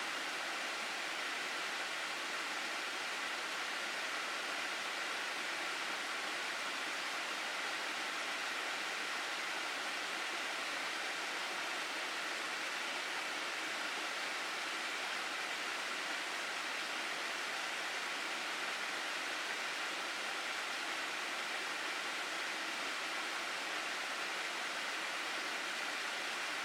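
Mountain stream water rushing steadily over rocks in a gorge, an even hiss with no change in level.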